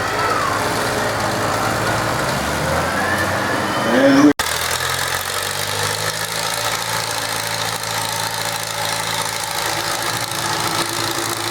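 Farm tractor engine running under a pulling load, its pitch rising just before four seconds in. The sound then breaks off abruptly and resumes with a tractor engine running steadily.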